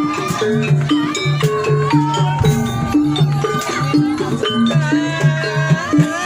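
Live jaranan accompaniment music: a fast, even rhythm of short low pitched drum and gong-like notes, sharp rattling percussion strokes, and a wavering melody line over the top.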